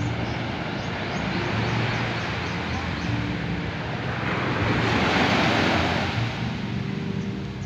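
Small waves breaking and washing up a sandy shore, the surf swelling loudest about five seconds in, over a low steady hum.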